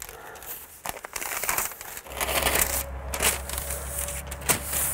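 House wrap and blue self-adhered membrane crinkling and rustling in irregular bursts as they are pressed and tucked into place by hand, with a sharp crackle a little before the end.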